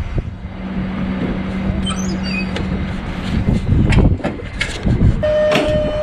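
Rear door of an enclosed car-carrier trailer being unlatched and opened, with a run of heavy clunks and thumps, over a steady low engine hum from the truck. About five seconds in a steady whine starts up and keeps going.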